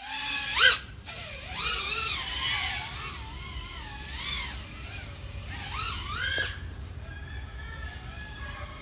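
iFlight AOS 3.5 V5 FPV quadcopter's XING 1504 brushless motors spinning Gemfan propellers. Their whine swoops up and down in pitch with the throttle, with a few loud high-pitched surges, then settles to a quieter, steadier hum in the last two seconds.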